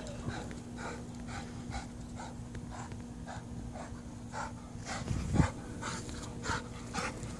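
Pit bull panting hard in quick, even breaths, about three a second, as it plays. A single thump about five seconds in.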